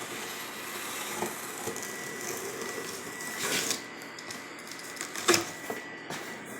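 Cardboard box and packing being handled and opened: rustling and scraping, with a few sharp clicks and a knock about five seconds in.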